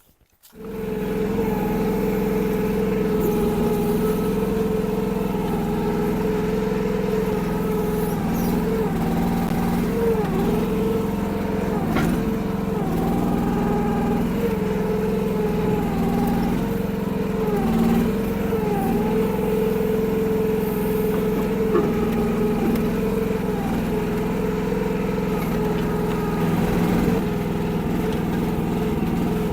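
Kymron mini excavator's 14-horsepower Briggs & Stratton engine running, cutting in abruptly at the start, its pitch dipping briefly several times as the hydraulics take load. A single sharp knock sounds about twelve seconds in.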